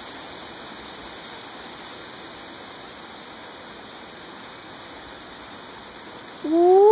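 A steady hiss of background noise. Near the end a toddler's voice starts suddenly and loudly, rising in pitch and then held as a long whine.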